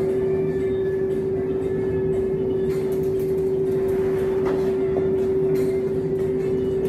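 Background electronic music: a sustained drone holding one steady note, with a few faint knocks.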